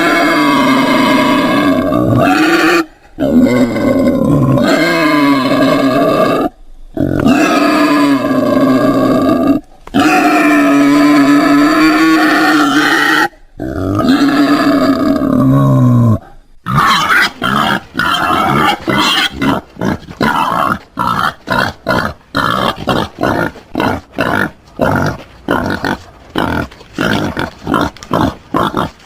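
Wild boar calling. Long, drawn-out pitched calls of a few seconds each are broken by short pauses. A little past halfway, these give way to a fast string of short grunts, several a second.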